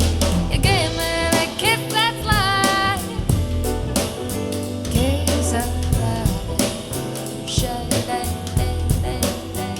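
Music: a song with a sung phrase in the first few seconds over a drum kit beat and a deep bass line.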